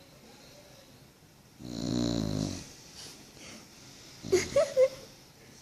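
A pet dog snoring: one long, low snore about two seconds in, then three short sharp sounds in quick succession near the end.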